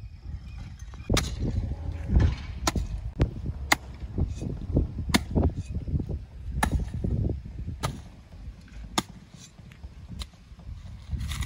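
A steel shovel working a pile of gravel, the blade's sharp scrape or chink against the stones coming roughly once a second.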